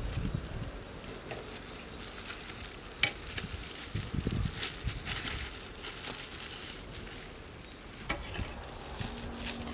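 A steel spoon scraping and clinking on a steel platter while foil and plastic food packets rustle and crinkle, in irregular bursts with one sharp click about three seconds in.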